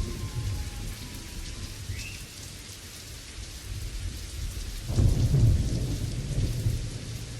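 Steady rain, with a low rumble of thunder swelling about five seconds in.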